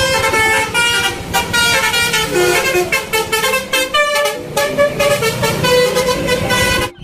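Telolet bus horn playing a rapid melodic tune of many short notes that step up and down in pitch, cutting off abruptly near the end.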